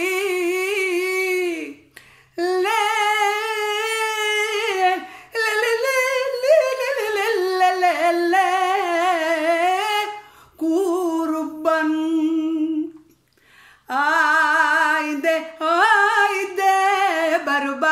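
A woman singing unaccompanied in a traditional Asia Minor folk style, with long held wordless melismatic phrases full of wavering ornaments. There are about five phrases, with short breaths between them.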